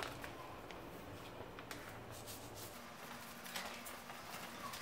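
Faint handling sounds: a plastic vacuum-sealer bag with a beef rib inside rustling in the hands, with a few light clicks.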